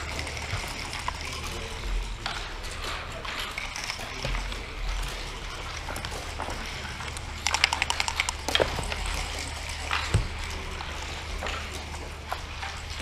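Backgammon checkers and dice clicking on a wooden board. There are scattered single taps, a quick rattle of clicks past the middle and a sharper knock a little later, over a steady low hum.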